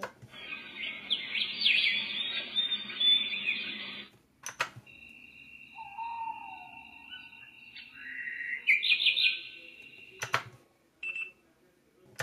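SOAIY SH39 speaker playing its preset birdsong alarm tones: dense bird chirps and tweets, cut by a sharp click of a mechanical button as the next preset starts. The next preset is a steady high whistle with a lower gliding tone, then more chirps, and another button click follows.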